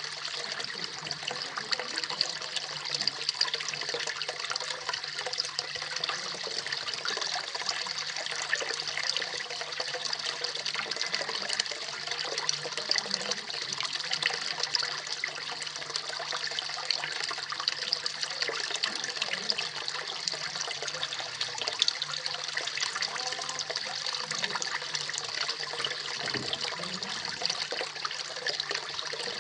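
Small koi pond waterfall splashing and trickling steadily into the pond.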